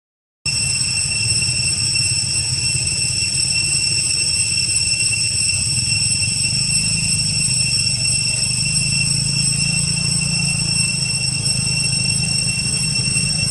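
A low engine-like rumble under a steady high-pitched whine in several fixed tones; the sound drops out completely for about half a second at the very start.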